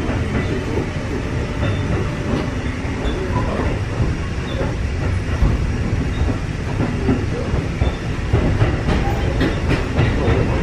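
Running sound inside a Kotoden 1300 series electric train car, a former Keikyu 1000 series car: a steady rumble of the wheels on the rails, with a few sharp clicks near the end.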